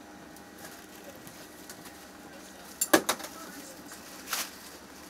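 Handling of an animal transport crate over the steady hum of an aircraft cargo hold: a quick cluster of sharp knocks about three seconds in, then a brief rustle a little later, likely the plastic bag.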